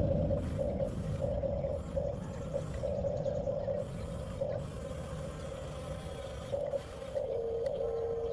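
Electric motors of a 1/14 scale Huina RC bulldozer whining in short spurts as the controls are worked, with a low rumble underneath; near the end the whine settles to a slightly lower, steadier pitch.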